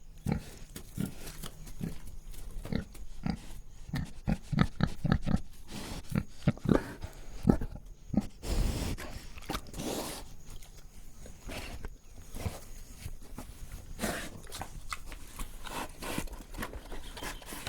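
Pig breathing: short, uneven breaths in quick runs, densest in the first third, with one longer drawn breath near the middle.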